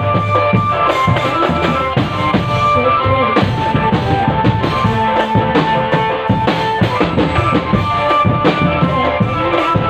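Drum band playing: marching snare and bass drums beating steadily under a melody of held notes.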